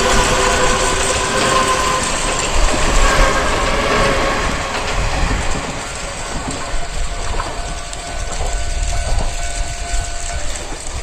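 Dubbed-in train sound effect: a train horn sounding over the clatter of rolling wheels, fading after about five seconds, then a fainter, higher horn tone about halfway through.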